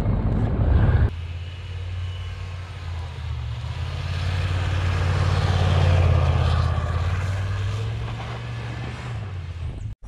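1995 Chevrolet K1500 Z71 pickup running hard as it spins through deep snow. Its steady low engine sound swells to a peak about halfway through and then fades away.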